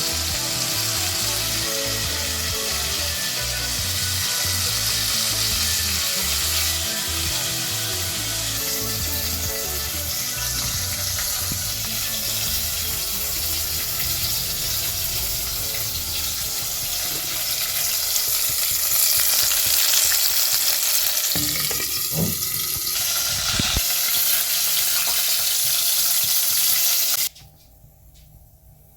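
Sweet and sour chicken frying and sizzling in a pot: a steady sizzle that cuts off suddenly near the end.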